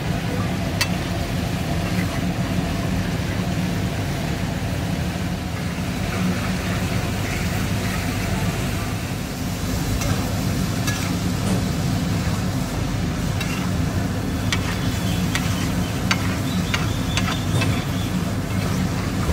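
Steel spatula scraping and clicking against a large iron tawa as paneer in gravy is stirred, with the gravy sizzling on the hot pan. A steady low hum runs underneath.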